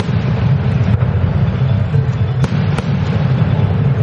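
Aerial fireworks bursting: a sharp crack at the start and two more in quick succession about two and a half seconds in, over steady background music.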